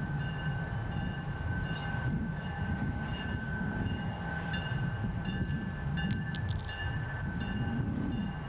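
Diesel locomotive moving slowly through a rail yard, its engine rumbling low and steady. Over the rumble a steady high tone holds, and shorter high ringing tones come and go, several of them close together about six seconds in.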